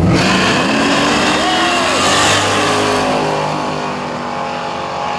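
Drag race cars accelerating hard off the line and down the strip, engine pitch climbing through the gears, then fading as they pull away.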